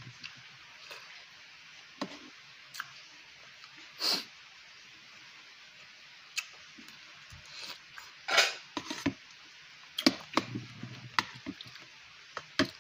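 Eating at a table: a spoon clicks and scrapes now and then against a bowl of noodles and rice, about a dozen short sounds spread across the stretch, two of them longer, with quiet between.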